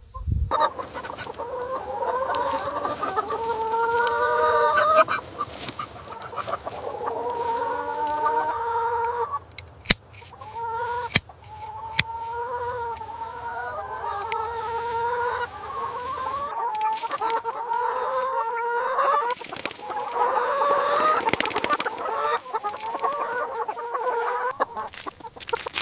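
A flock of chickens clucking, many overlapping calls running on almost without a break, with a few sharp clicks about ten to twelve seconds in.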